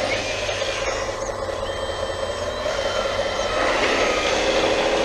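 1/14 scale hydraulic RC wheel loader working: a steady whine from its electric hydraulic pump and drive motors. About three and a half seconds in, a motor's pitch rises and then holds.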